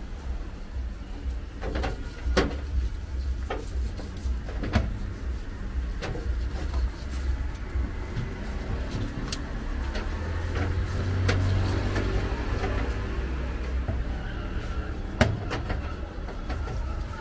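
A long döner knife shaving meat off a rotating horizontal spit, with sharp clicks and knocks every second or two, over a steady low rumble.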